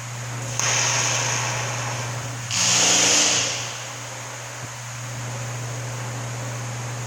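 TIG welding equipment humming steadily, with two bursts of hissing: one starting suddenly under a second in, and a louder one about two and a half seconds in that lasts about a second.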